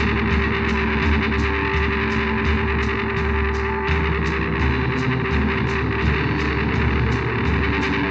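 Live rock music: a guitar playing held chords over a steady beat of high ticks, about three to four a second.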